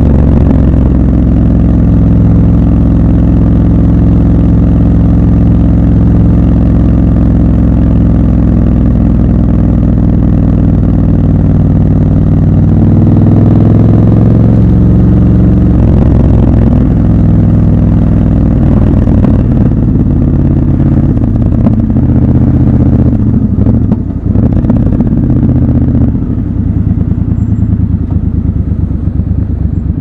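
Triumph Scrambler 1200 XC's parallel-twin engine running steadily at cruising speed, its pitch shifting about halfway through and then varying as the bike moves with traffic. Near the end it drops to a lower, pulsing idle as the bike comes to a stop.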